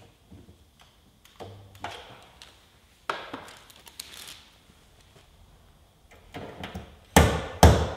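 Stud-welding dent puller at work on a car body panel: a few light clicks and knocks, then two loud sharp knocks about half a second apart near the end as the last welded-on pin is worked to pull the dent out.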